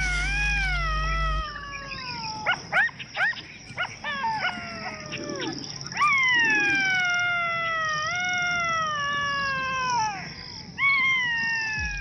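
Jackal howling: long wavering howls that fall in pitch, with a quick run of short yips between the first and second howl and a third howl starting near the end. It is a male calling to his mate.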